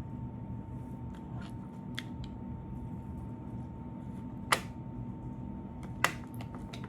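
Two sharp clicks, about four and a half and six seconds in, with a few fainter ticks, over a steady low hum.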